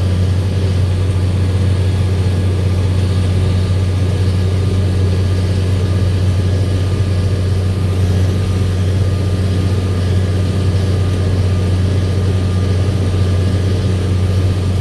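International farm tractor's diesel engine running steadily under load, pulling an auger cart. One unchanging deep engine note with no change in revs.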